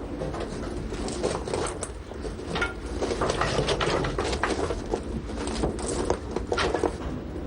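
Irregular metallic clattering and knocking from fire-lighting work on a steam locomotive, as coal and fire tools are handled, over a steady low hum. The knocks come thickest through the middle and latter part.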